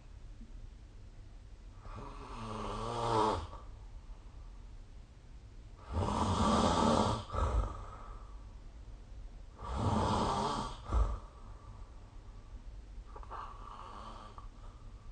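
A sleeping person snoring: four snores about four seconds apart, the two in the middle loudest and the last one faint.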